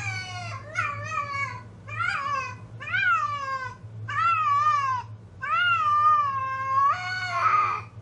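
Female domestic cat in heat calling: about six drawn-out meows in a row, each rising and then falling in pitch. The longest comes near the end and turns rough. A steady low hum runs underneath.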